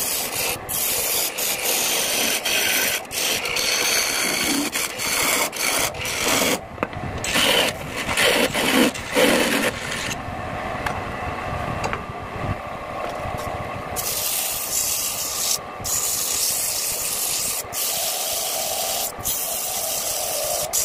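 Hand-held turning chisel cutting the outside of a spinning wooden bowl blank on a wood lathe: a continuous scraping, rasping hiss of shavings coming off. It breaks off for a moment many times as the tool lifts and touches again, and is loudest around the middle.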